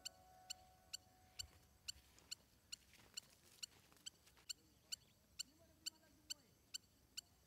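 Faint, high-pitched chirp repeating steadily about twice a second. The last held notes of background music fade out in the first second.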